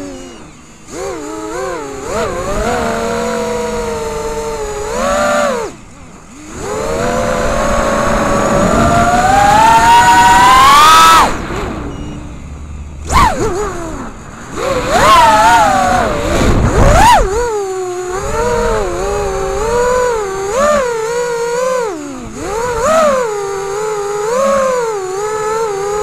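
FPV quadcopter's motors and propellers whining, the pitch rising and falling with the throttle. There is a long climbing whine up to about eleven seconds in, brief cut-offs near six and twelve seconds, then a lower, wavering whine over the last several seconds.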